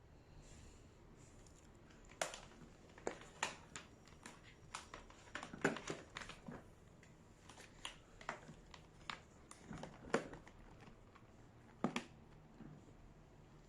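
Scattered clicks and light knocks of a vacuum cleaner being handled by hand, its parts moved about with the motor off.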